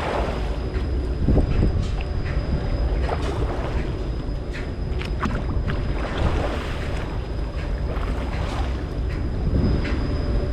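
Fishing boat's engine running steadily, with wind buffeting the microphone and scattered knocks.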